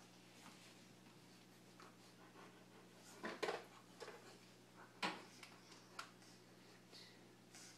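Near silence over a low steady hum, broken by a few brief soft scuffling sounds from a Great Pyrenees gently mouthing a Shih Tzu puppy in play. The loudest come about three and a half and five seconds in.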